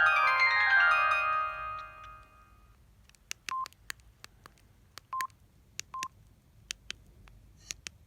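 Samsung SGH-D600 mobile phone ringtone ending in a cascade of chiming notes that fades out over about two and a half seconds. Then comes a string of sharp key clicks, with three short single-pitch beeps among them, as the handset's ringtone menu is stepped through.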